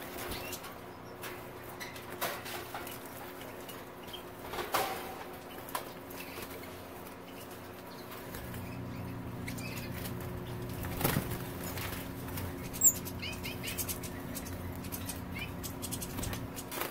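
European goldfinches fluttering and flapping their wings in short flurries inside a wire cage, with a few brief high chirps. The sharpest chirp comes about three-quarters of the way through. A faint steady low hum runs underneath.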